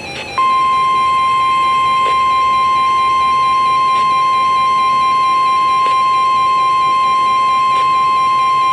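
NOAA Weather Radio 1050 Hz warning alarm tone: a single loud, steady high-pitched tone that starts about half a second in and holds without a break. It signals that a warning message follows.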